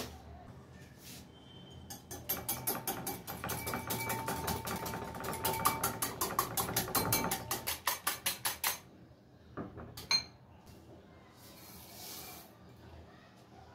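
Wire balloon whisk beating an egg in a glass bowl: a fast, even run of clicks as the wires strike the glass, lasting about seven seconds. After a single click, sugar pours into the bowl with a soft hiss near the end.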